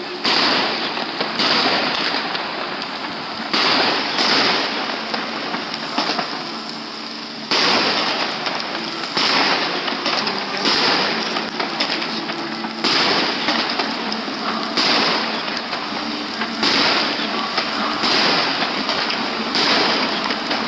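Fireworks display: a continuous crackle of bursting shells, with sudden louder bangs every second or two.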